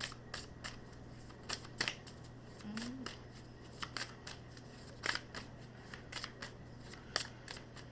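Tarot cards being handled and shuffled: irregular sharp snaps and clicks of card stock, several a second, with a few louder snaps.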